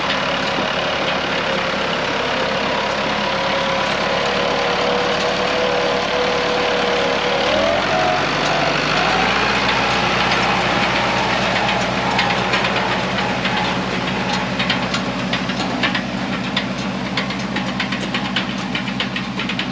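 International Harvester 574 tractor engine running steadily. About seven and a half seconds in, its pitch steps up and it holds the higher speed. A light rattling joins in through the second half.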